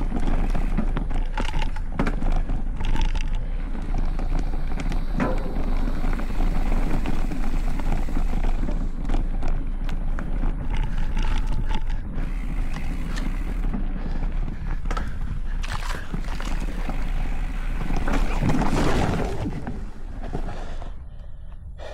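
Specialized Stumpjumper Evo mountain bike riding a rough trail, heard from a handlebar-mounted camera: tyre and wind rush with frequent knocks and rattles as the bike goes over bumps. The noise swells briefly near the end, then drops off.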